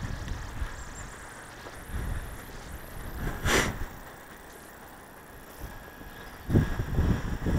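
Pressure washer running quietly with no steady spray, and one short hiss about halfway through. Low buffeting rumbles near the end.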